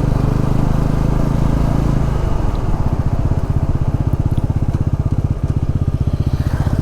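A 220 cc motorcycle engine running while riding, a steady note for the first couple of seconds, then dropping to a lower, evenly pulsing beat as the revs come down.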